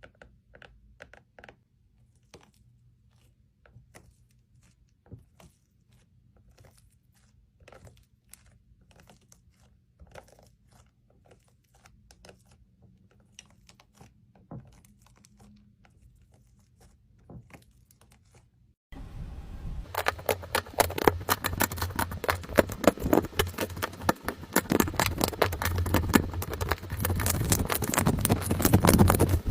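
Slime being squeezed and pressed by hand. At first there are only sparse faint clicks and pops. About two-thirds of the way through it turns suddenly into a dense, louder crackling of many small pops.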